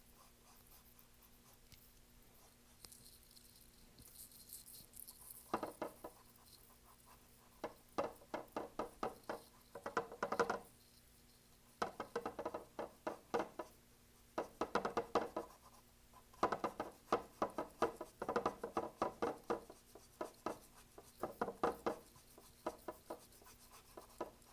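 A flat paintbrush scrubbing acrylic paint onto a stretched canvas: after a few quieter seconds, runs of quick back-and-forth strokes, each run about a second long, with short pauses between.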